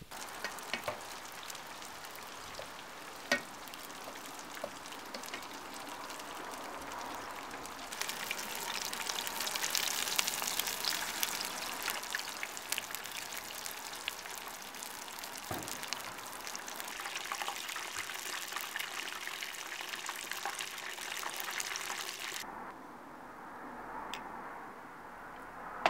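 Battered cod fillets deep-frying in a pan of hot oil: a steady sizzle with dense crackling and small pops. The sizzle cuts off near the end.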